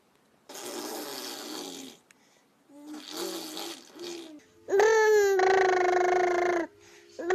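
Baby vocalising: breathy noisy sounds and soft babbling, then a loud, high, held squeal about five seconds in, lasting about two seconds.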